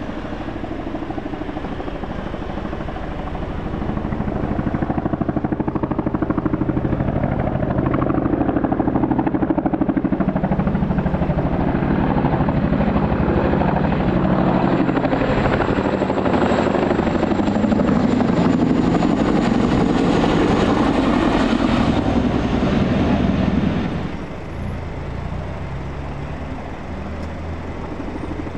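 A US Army CH-47F Chinook tandem-rotor helicopter passing low overhead: the rapid thudding of its twin rotors and its twin turbines, growing louder as it comes in. A faint high whine falls in pitch while it is closest, and the sound drops suddenly near the end.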